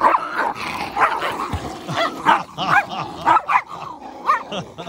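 Small dogs fighting over a fish, with a rapid run of short, sharp barks and yelps, one after another.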